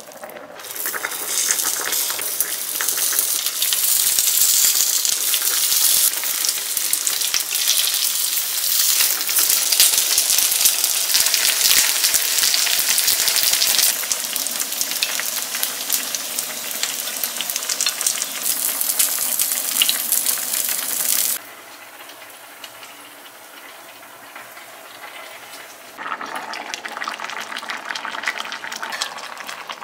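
Corn pancake batter sizzling loudly as it fries in hot oil, with an even crackling hiss that cuts off suddenly about two-thirds of the way through. After a quieter spell, a softer sizzle or simmer starts again near the end.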